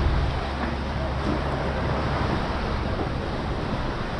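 Steady wind rumble on the microphone over water moving below the pier, the low rumble easing a little after about two seconds.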